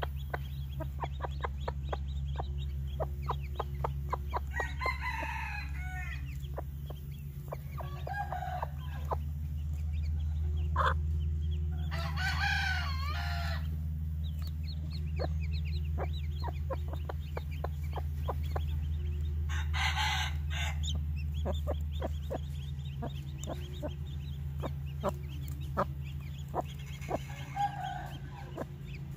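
Hmong hen clucking softly and repeatedly with her chicks peeping around her. Louder calls, including rooster crowing, come in several times, over a steady low hum.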